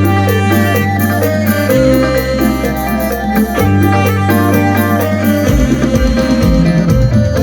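Isan mor lam band playing an instrumental passage: long held bass and keyboard chords that change about every two seconds under layered melody lines. About five and a half seconds in, a steady low drum beat comes in.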